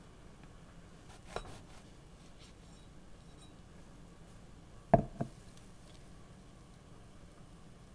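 Quiet kitchen handling sounds. About a second and a half in there is a short rasping scrape, a serrated bread knife through a bread roll. Near the middle come two sharp knocks in quick succession, from utensils or a jar on the plate and wooden cutting board.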